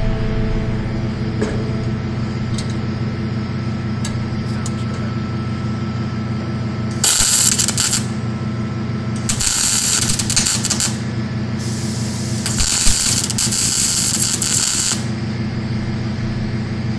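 MIG welder laying short tack beads: several bursts of arc crackle and sizzle, each about one to two and a half seconds long, starting about seven seconds in. A steady machine hum runs underneath.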